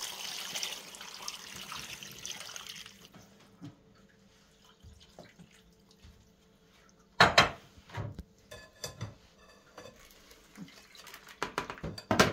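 Sumac water poured from a glass bowl into a steel pot of stuffed vegetables, splashing for about three seconds. Later, sharp clatters of bowls and a metal strainer being handled on the counter, loudest about seven seconds in and again near the end.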